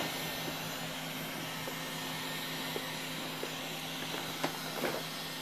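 Electric heat gun blowing steadily, a level airy hiss over a low hum, used to warm freshly brushed epoxy and lift the bubbles out. A couple of faint ticks come near the end.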